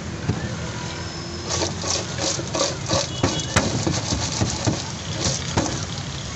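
Metal tongs scraping and clinking against the metal lining of a pot as French fries are tossed with spice: about a dozen quick strokes from about a second and a half in until near the end. Under them runs a steady low engine-like hum.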